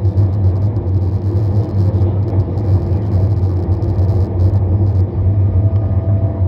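Passenger train running, a steady low rumble of wheels and carriage heard from inside the car, with a faint high whine coming in near the end.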